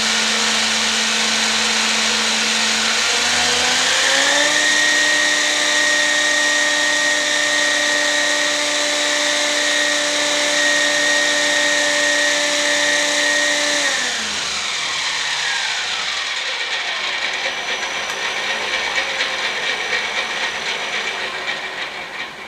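3D-printed centrifugal turboshaft spinning its propeller with a steady whine over a rush of air. About three seconds in the pitch rises and holds. About fourteen seconds in it drops away as the engine spins down, and the airflow noise fades near the end.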